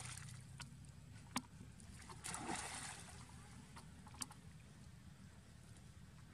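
Faint water sloshing and splashing as a macaque moves through a muddy pond, with a short splash about two seconds in and a few sharp ticks.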